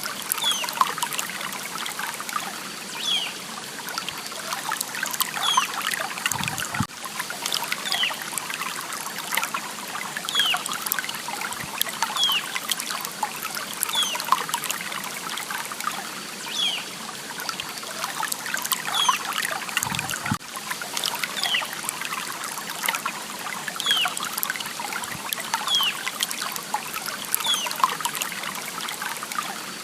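Water trickling steadily in a small stream. A short, high, falling chirp repeats every second or two over it, and there is a brief low thud twice.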